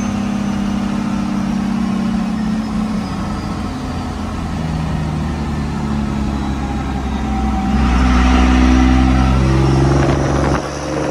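1959 Chevy Viking truck's engine running under way, heard from inside the cab. Its note climbs and grows louder about eight seconds in, then drops suddenly near the end.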